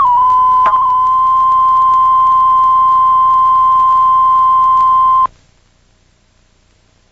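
A loud, steady high-pitched tone that glides up and wobbles at first, holds one pitch for about four seconds, then cuts off suddenly.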